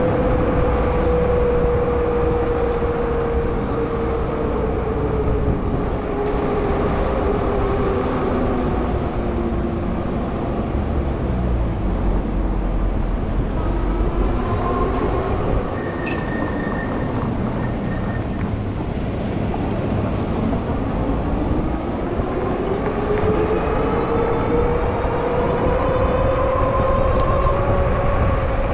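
Rize Blade 2 e-bike's motor whining under rushing wind and road noise on the move. The whine slides down in pitch as the bike slows over the first third and climbs again as it speeds up in the last third. A brief high tone sounds about halfway through.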